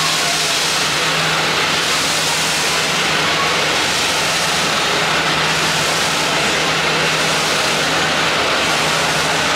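Steady hiss of steam escaping from Sri Lanka Railways Class B2b steam locomotive as it stands at the platform, with a steady low hum underneath.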